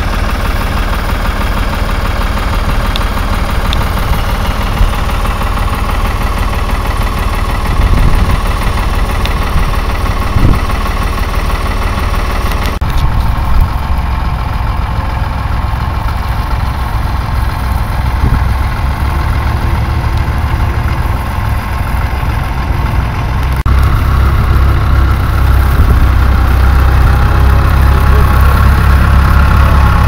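Tractor engines running under load while ploughing stubble, heard in three clips that change suddenly about a third and about four-fifths of the way through. The last clip, a Case IH 885XL tractor, is the loudest, with a strong low engine hum.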